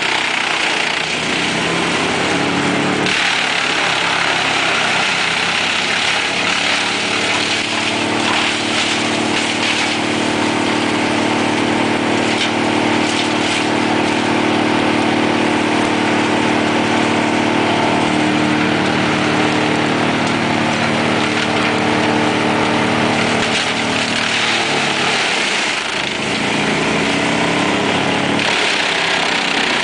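Mobile drum wood chipper running steadily at high speed, its engine a loud, even drone. As its spiked feed roller takes in branches and logs, there is a harsh rushing noise of crushing and chipping wood, heaviest at the start and near the end, with a few sharp cracks of splintering wood in between.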